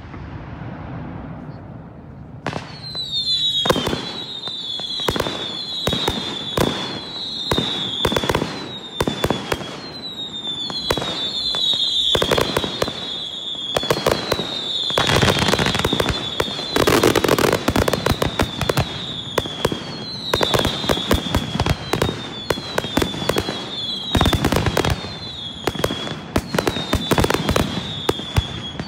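Aerial fireworks display. A hissing crackle gives way, about two seconds in, to a rapid string of bangs and bursts. Over the bangs run short whistles, each dropping slightly in pitch, about one or two a second.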